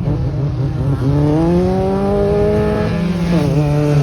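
Tuned-up rally car engine revving hard: its pitch climbs about a second in and holds, dips briefly a little after three seconds, then climbs again.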